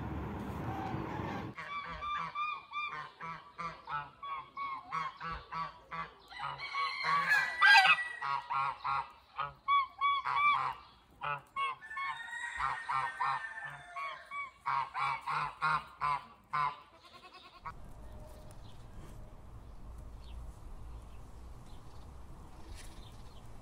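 A black swan calling over and over in short honking, bugle-like notes, with a few louder calls in the middle. The calls stop suddenly about 17 s in and give way to a faint steady outdoor hiss.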